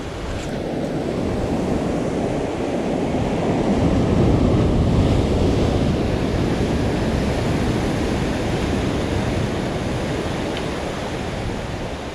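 Ocean surf breaking and washing over rocks below a cliff, a swell of noise that grows loudest about four seconds in and then slowly eases, with wind on the microphone.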